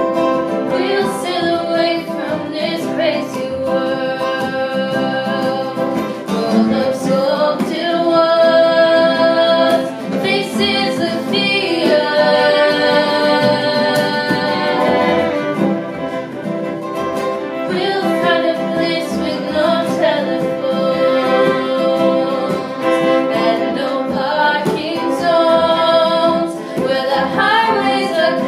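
Two young female voices singing a slow song together, accompanied by a bowed fiddle and a strummed acoustic guitar.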